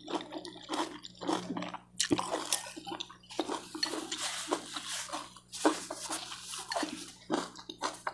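Close-miked eating sounds: wet slurping of saucy fried noodles and chewing, in irregular, uneven smacks.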